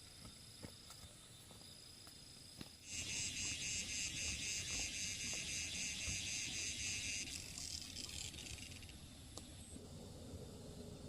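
An insect calls in a loud, fast pulsing trill, about five pulses a second, starting about three seconds in and fading out after about four seconds. A few faint clicks come before it.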